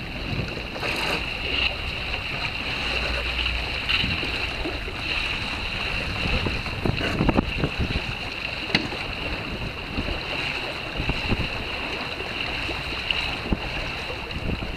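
Wind on the microphone and water rushing along the hull of a Beneteau Platu keelboat under sail, with a steady high whine and a few scattered knocks.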